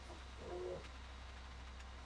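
Faint steady low rumble of a running concrete mixer truck, with a brief low hoot about half a second in.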